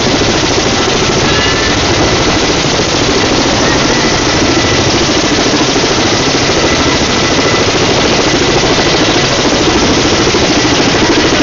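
Firefighting helicopter hovering low overhead while loading water, its rotor chop and turbine loud and steady throughout.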